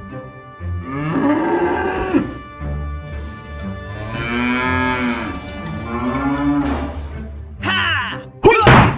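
Cow moo sound effects, three long moos that rise and fall in pitch, over background music, dubbed onto toy cattle figurines. Near the end comes a short, loud animal cry.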